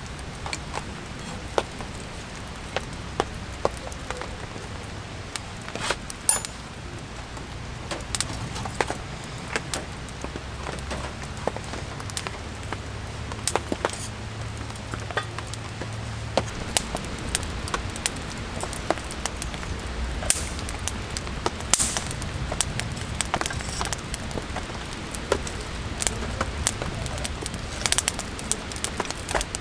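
Rain falling, a steady hiss with many irregular sharp ticks and pops from drops striking surfaces. A low hum underneath stops a little past halfway.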